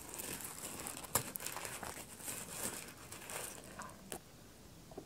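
Hands rubbing and crumpling a crinkly, rough-surfaced object, a dry rustling and crackling with a few sharper crackles, which stops about four seconds in.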